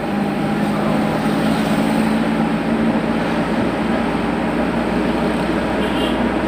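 Steady engine and road noise heard inside the cab of a small cargo truck on the move, with a constant low hum.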